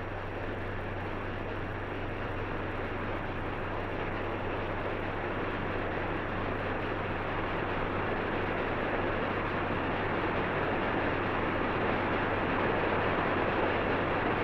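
Steady hiss and low hum from an old 1930s film soundtrack, slowly growing a little louder, with no narration or music over it.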